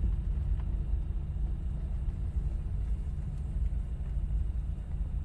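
Car running, a steady low rumble heard from inside the cabin.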